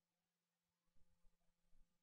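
Near silence: a faint steady hum, with a few soft low bumps in the second half.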